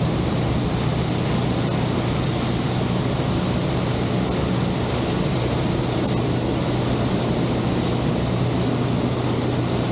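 Honda outboard motor running at a steady speed with a constant low hum, over the rush of water along the boat's hull.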